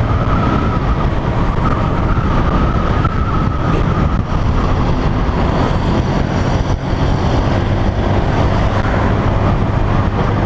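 Motorcycle running on the road while riding: a steady engine drone under road and wind rush.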